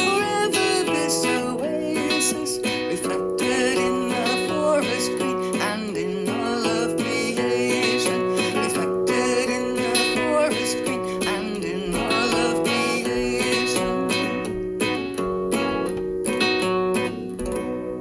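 Acoustic guitar song: strummed and plucked guitar under a sung melody, easing down in level near the end.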